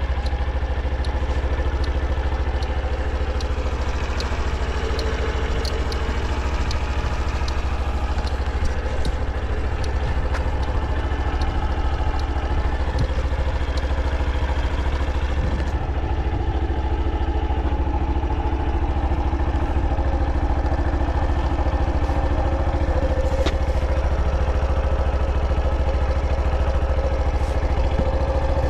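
Honda Super Cub 50 Pro's 49 cc single-cylinder four-stroke engine idling steadily, running without unusual noises.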